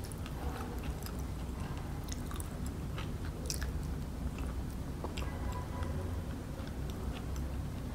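Close-miked eating sounds: chewing with scattered small crunches and wet mouth clicks, over a low steady hum.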